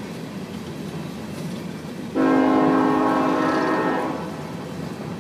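Empty coal cars of a BNSF freight train rolling past with a steady rumble. About two seconds in, a loud horn sounds once for about two seconds and then fades.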